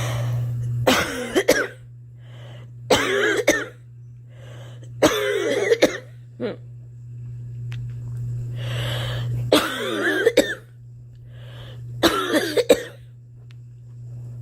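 A girl coughing in about five bouts of two or three coughs each, with breaths drawn in between. A steady low hum runs underneath.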